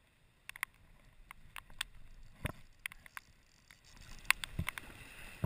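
Raindrops striking a GoPro camera housing in a downpour: irregular sharp ticks over a faint hiss, with two heavier knocks, about two and a half and four and a half seconds in.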